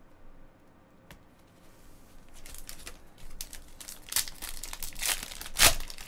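A foil trading-card pack being torn open and its wrapper crinkled: quiet at first, then a quick run of crackling tears from about two seconds in, the loudest rip near the end.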